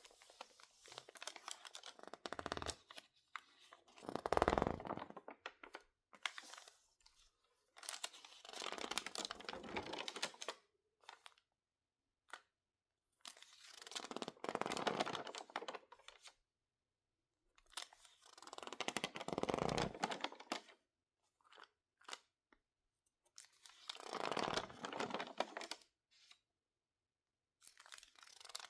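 Stiff, water-damaged magazine pages being crinkled and squeezed by hand, in separate swells of rustling and crunching about every five seconds with short quiet gaps between.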